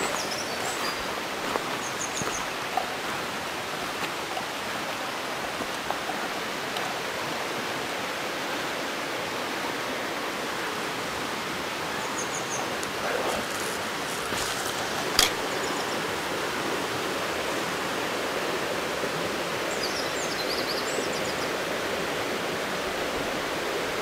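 Mountain stream running over rocks: a steady, even rush of water. A few faint high chirps come in twice, and a single sharp click sounds about midway.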